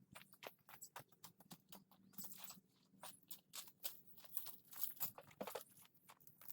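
Faint, irregular clicking and tapping, several light strikes a second, from hand tools and metal parts being handled while air conditioners are taken apart.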